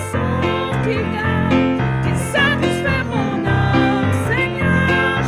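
Worship song: a keyboard playing sustained piano chords while a woman sings, her held notes wavering with vibrato.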